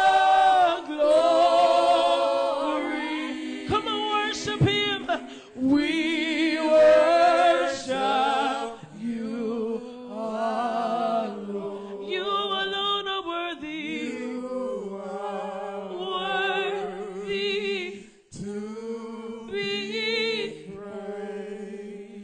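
Gospel praise team singing a worship song, voices wavering in pitch on long held notes.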